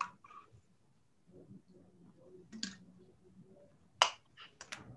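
A few short, sharp clicks and taps at irregular intervals, the loudest about four seconds in and followed by two or three quicker ones, over faint room noise.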